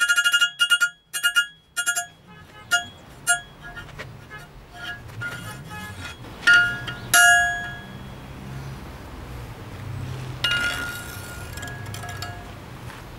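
Hammer blows on hot rebar over a steel anvil, each strike ringing: a quick run of blows at the start, then slower, spaced strikes. This is the taper at the end of a tong rein being drawn out and the piece neatened.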